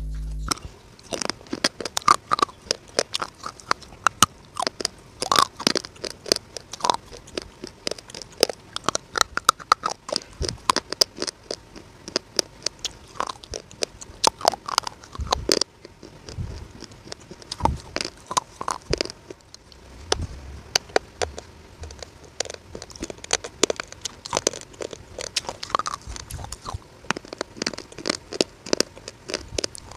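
Crisp, close-miked crunching and chewing of hard, dry edible clay pieces, such as multani mitti (fuller's earth) cubes and grey clay chunks: many sharp bites and crunches in an uneven run, with a brief lull about sixteen seconds in.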